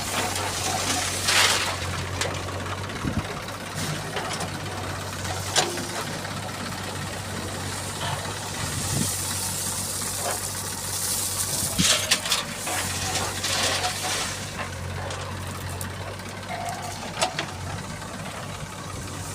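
Heavy diesel engine running steadily at low revs, broken by a few sharp clatters and several bursts of hissing noise.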